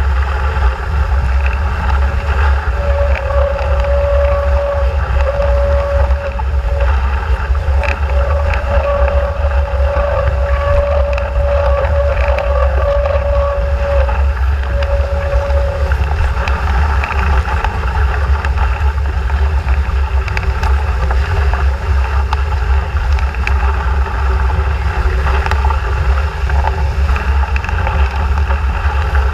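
Heavy wind buffeting the microphone of a deck-mounted camera on an RS400 sailing dinghy driving hard in strong wind, with water rushing and spraying along the hull. A steady humming tone comes and goes through the first half.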